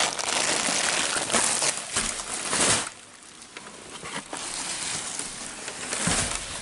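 Packing material in a cardboard shipping box rustling and crinkling as hands dig through it, loudest for the first three seconds, then quieter with scattered crackles and another swell near the end.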